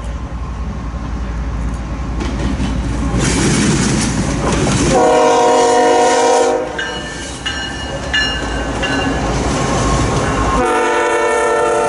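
Diesel freight train passing close, with locomotive engine rumble and wheel noise on the rails. The locomotive's air horn sounds a blast of about a second and a half about five seconds in, and another near the end.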